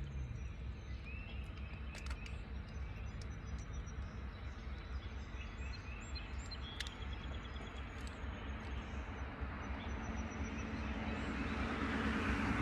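Outdoor lakeside ambience: a steady low hum under a noise bed, with a few short bird chirps. A rushing noise swells near the end.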